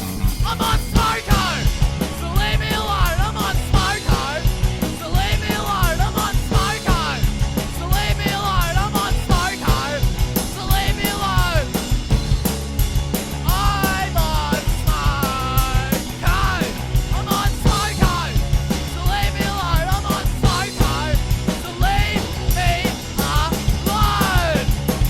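Rock music with a steady, driving beat and a melody line gliding over it.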